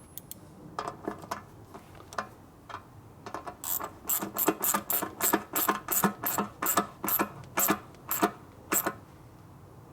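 Ratchet wrench being worked back and forth: a few scattered clicks, then from about three and a half seconds in a steady run of sharp ratcheting clicks, about three a second, that stops near the end.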